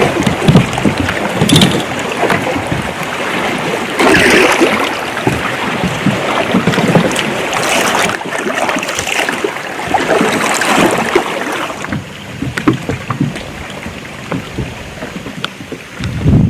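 Wind buffeting the microphone and water moving against a fishing kayak, in irregular loud rushes with small knocks; it settles noticeably about twelve seconds in.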